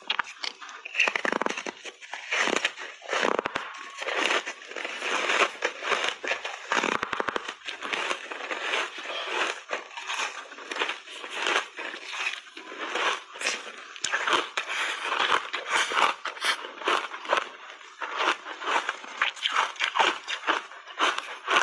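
Crunchy foam ice coated in matcha powder being bitten and chewed right at a lapel microphone: a continuous run of crackling crunches, several a second.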